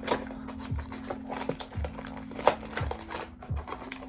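Background music with a steady beat about once a second, over light clicking and handling noises of toy packaging being opened.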